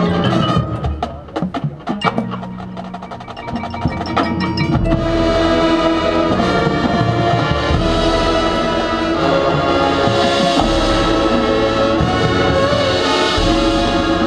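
Marching band field-show music: sharp percussion and mallet hits at first, then about five seconds in the full band comes in loud with sustained chords over bass drums.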